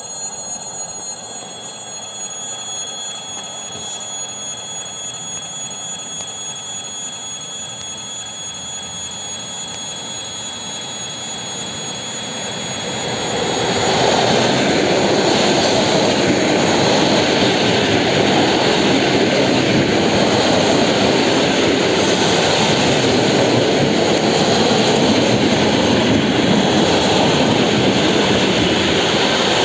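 Electric commuter train approaching and passing close by. At first a steady high-pitched whine over a soft rumble grows slowly louder. About 14 seconds in, the train reaches the microphone and a loud, steady rushing noise of wheels on rails and passing carriages takes over.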